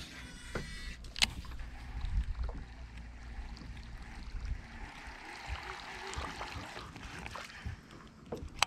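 Small aluminium jon boat on the water: light water sounds against the hull, with a few sharp knocks, the loudest about a second in and another right at the end.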